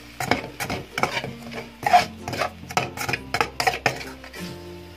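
A spoon scraping and knocking against an aluminium kadai as shredded chicken is stirred and mixed with sauces, a quick run of strokes about three a second that stops about four seconds in.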